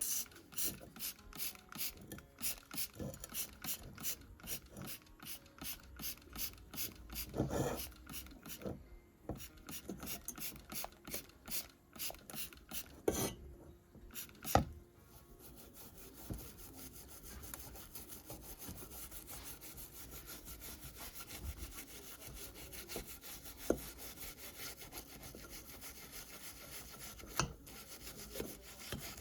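Hand rubbing or scraping strokes on a tool part, about two strokes a second for the first half, then a faster, continuous scrubbing. A few sharp knocks stand out, two of them about halfway through.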